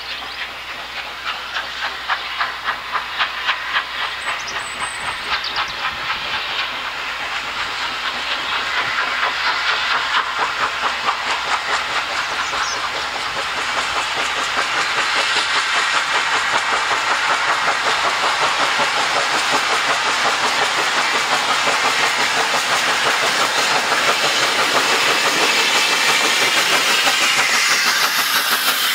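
Steam locomotive pulling a train of coaches, its exhaust beats quickening and growing steadily louder as it approaches, with hissing steam. Near the end the coaches pass close by, wheels clattering over the rail joints.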